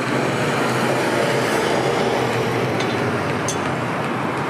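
Road traffic passing on a city street: a steady rumble of vehicles going by, with a couple of faint ticks about three seconds in.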